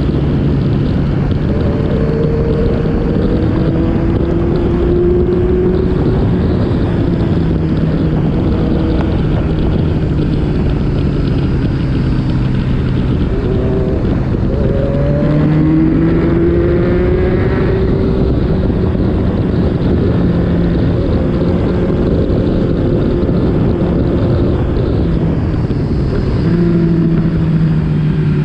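Motorcycle engine running under load, its pitch rising and falling several times as the throttle is opened and closed, with wind rushing over the microphone.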